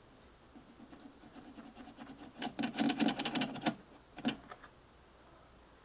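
A rapid run of sharp clicks lasting a little over a second, then one more click, from a switch on a Sencore transistor tester being worked back and forth to find out whether it is the cause of a jumpy meter reading.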